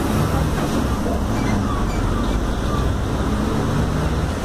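Mercedes-Benz OF-1721L city bus under way: a steady engine drone mixed with road and tyre noise.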